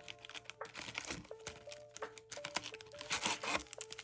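Plastic wrapping on a trading card box crinkling and tearing in irregular bursts, loudest about three seconds in, over background music with a simple melody of held notes.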